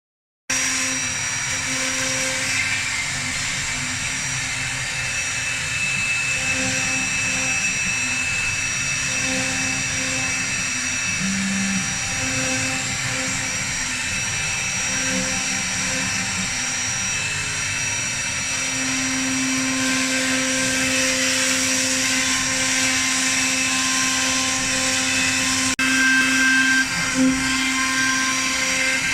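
ELE1325 CNC router at work: a steady high spindle whine over a continuous machine hum. There is a single click near the end.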